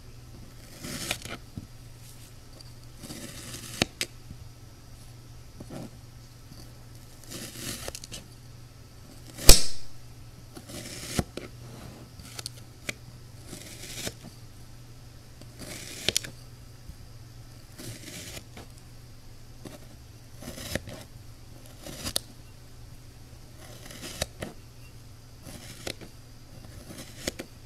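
Green kinetic sand being sliced and scraped with a wooden-handled metal loop tool: a crisp crunching rasp with each stroke, repeating every second or two. About nine and a half seconds in comes one sharp, loud click. A faint low hum runs underneath.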